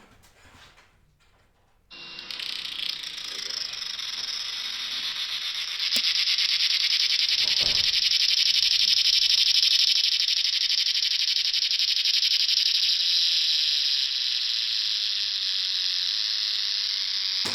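Recording of a male cicada's buzzing song, its call to attract females. The buzz is loud and steady; it starts about two seconds in and grows louder a few seconds later.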